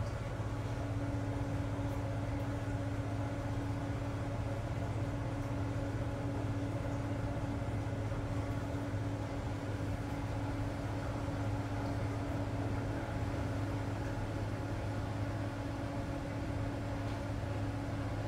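Steady low mechanical hum with a constant tone and no change throughout.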